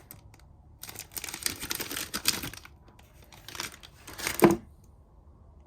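Plastic packaging crinkling and rustling in irregular bursts as a new fuel return line is handled and unwrapped, loudest about four and a half seconds in.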